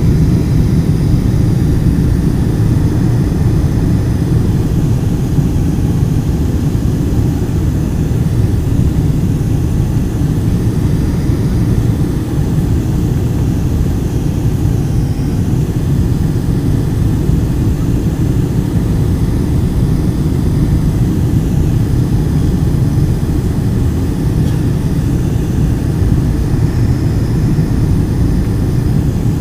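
Steady low-pitched cabin noise inside a Boeing 747 descending on approach to land: engine and airflow noise, even throughout with no distinct events.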